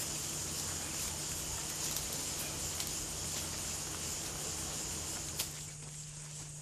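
Steady outdoor ambience: a constant high insect drone over a faint low hum, with a single sharp click about five seconds in, after which the insect sound drops away.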